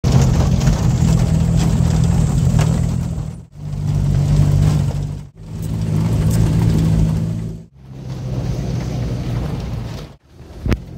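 Engine and road noise inside a 4x4 driving slowly over a rough dirt track: a steady low engine drone with scattered knocks and rattles. It cuts off abruptly and starts again three times, and a short sharp click comes near the end.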